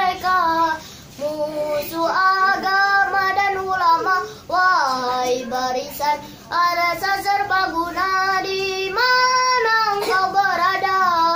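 A boy singing solo without accompaniment: long held notes that waver and bend in ornamented runs, with short breaks for breath between phrases.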